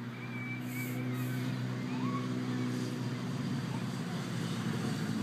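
A motor vehicle engine running with a steady, even low hum. A few faint high warbling chirps sound over it in the first two seconds.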